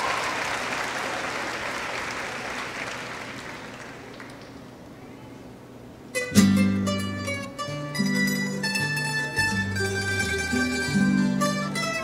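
Audience applause dying away, then about six seconds in, recorded Filipino folk music on plucked strings starts suddenly, with bright mandolin-like picking over a bass line.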